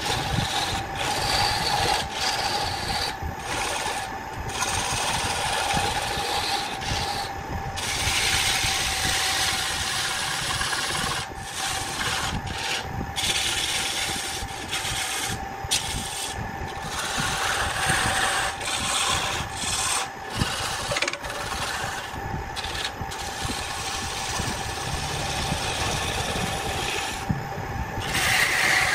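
Woodturning lathe running with a steady hum while a hand-held turning tool cuts into the spinning wooden workpiece: a rough, scraping hiss of wood being shaved, breaking off briefly many times as the tool eases off the cut.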